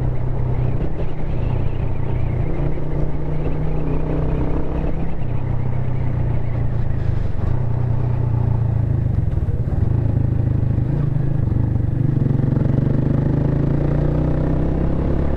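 Single-cylinder motorcycle engine running steadily while the bike is ridden, its low drone shifting a little in pitch about three quarters of the way through.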